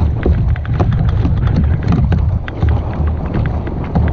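Wind buffeting the microphone of a camera on a kayak at sea, a loud low rumble, with irregular knocks and clicks from a caught fish and fishing tackle being handled against the kayak.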